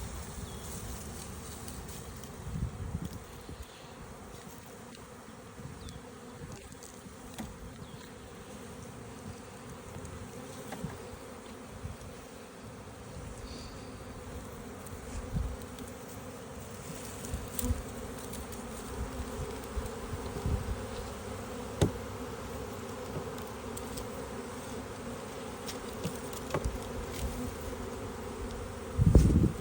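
Honeybee swarm buzzing as a steady hum that grows a little louder in the second half, with scattered low knocks and a loud thump near the end.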